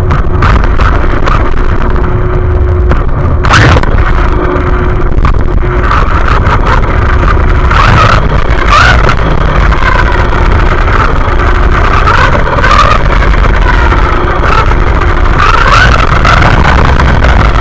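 Onboard sound of a radio-controlled car driving: a loud, steady rumble with a motor whine that rises and falls in pitch with the throttle, and a few sharp knocks.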